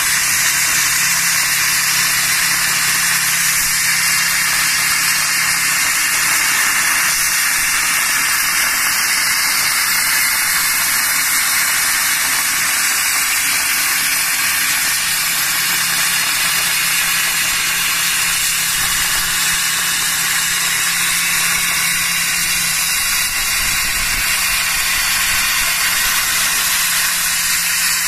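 Plasma cutting torch of a CNC cutting machine cutting through metal plate: a steady, loud hiss of the plasma arc and its gas jet.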